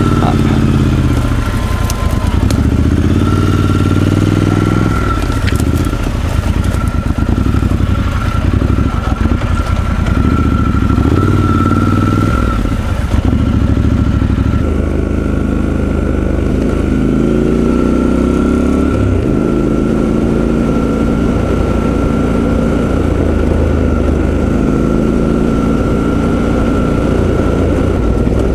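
Triumph Scrambler 1200 XE's parallel-twin engine under way on a dirt trail, its pitch rising and falling over and over as the throttle is opened and closed through the gears.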